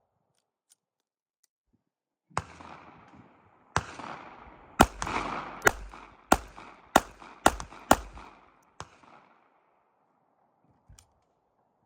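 Sig Sauer P365 .380 pistol firing about nine shots, each ringing out with an echo. Two single shots come over a second apart, then a quicker string at roughly two shots a second.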